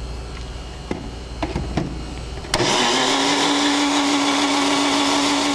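A few light knocks as the personal blender's cup is set on its base. About two and a half seconds in, the motor starts abruptly, spins up quickly and then runs at a steady pitch with a loud whir, blending hot coffee with butter and oil into a froth.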